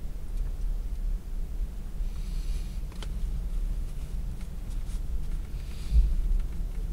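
Paper wrapper rustling and crinkling twice over a steady low rumble, with a faint click in between and a short low thump near the end.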